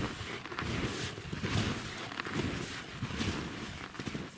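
Steps crunching through snow, about two a second.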